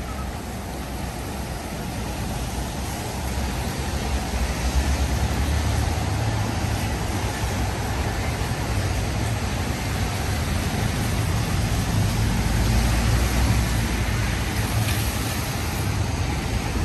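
Road traffic on a wet city street: a steady low rumble over an even hiss, growing louder a few seconds in and holding.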